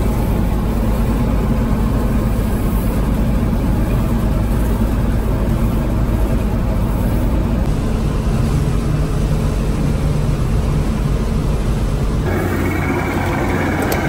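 Gleaner F2 combine running steadily while harvesting corn, heard from inside the cab: a continuous engine and threshing drone. About twelve seconds in it cuts to a different engine running steadily.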